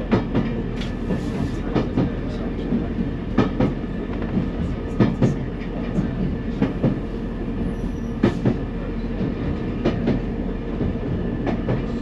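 NER Autocar 3170 running along jointed track: a steady low hum from the railcar under a rhythmic clickety-clack, its wheels knocking over the rail joints in pairs about every second and a half.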